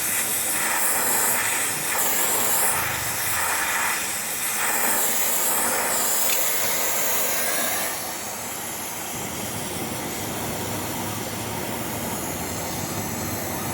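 Electric welding arc hissing and crackling on aluminium, with short breaks where the arc stops and restarts in the first half, then a quieter steady hiss from about eight seconds in.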